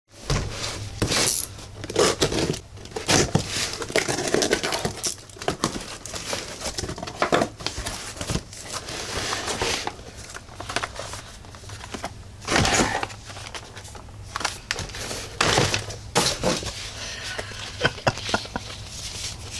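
Cardboard shipping box being unpacked: packing tape cut and torn, flaps pulled open and paper packing crinkled, in a run of uneven rustles, rips and knocks.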